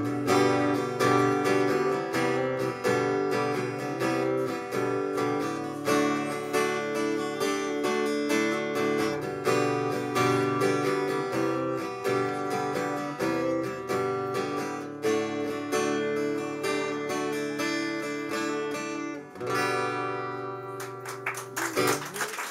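Acoustic guitar strummed in a steady rhythm as an instrumental passage with no vocals. About three seconds before the end, a last chord is left to ring and fade.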